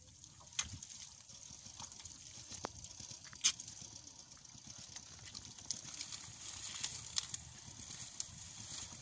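Bare hands digging and squelching through wet mud, with scattered small wet clicks and splashes; the sharpest click comes about three and a half seconds in.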